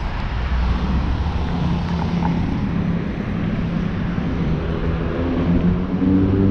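Street traffic: a steady hum of passing motor vehicles with a low engine drone. Near the end a vehicle's engine grows louder and rises in pitch as it pulls away.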